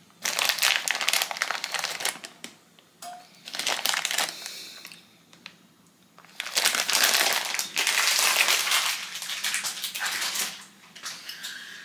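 Plastic sweets bag crinkling in the hand in several bouts, the longest in the second half, as chocolate-coated kruidnoten are taken out of it.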